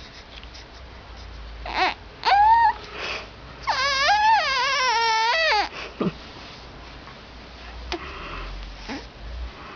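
A baby making noises: a short high squeal about two seconds in, then a longer wavering, whiny cry-like call lasting nearly two seconds, with a few faint small sounds after.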